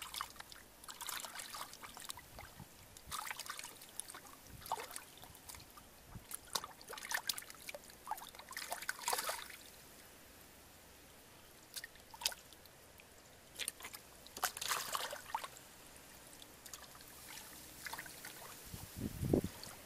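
Shallow muddy water splashing and sloshing in irregular bursts as hands grope through it and grab fish, with a quieter spell about halfway through and a dull thump near the end.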